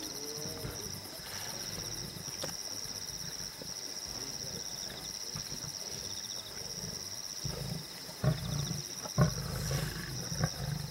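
A pride of lions growling and snarling as they feed together on a carcass, the low growls getting louder in the second half, with two sharp cracks.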